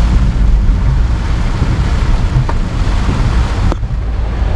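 Car driving through deep standing water on a flooded road, heard from inside the cabin: a loud steady rushing of tyre spray and water over a deep rumble. The hiss drops off suddenly near the end.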